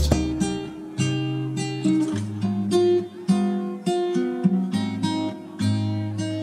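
Background music: acoustic guitar playing a run of plucked notes and chords, each note ringing and dying away.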